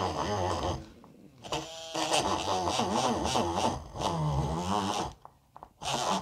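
Home-made mini drill's small RS385 DC motor drilling into hard nedun wood, its whine wavering and sagging in pitch as the bit bites under load. It stops about a second in and spins back up with a rising whine, then stops again briefly near the end before restarting.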